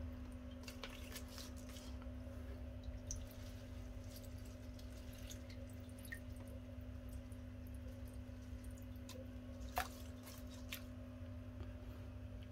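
Faint water dripping and small splashes as aquarium plants are handled in and out of water, over a steady low hum. One sharper click about ten seconds in.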